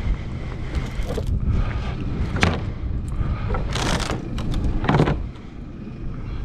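A vehicle's engine running with a steady low rumble. Several short clatters and knocks come over it about two and a half, four and five seconds in.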